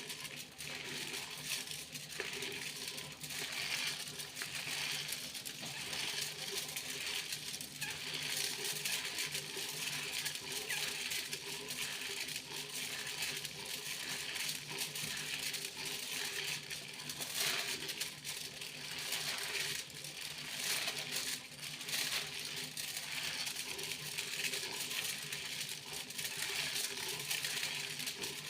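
Foil being crinkled and rustled by hand: a continuous dense crackle of fine clicks, with a faint steady hum underneath.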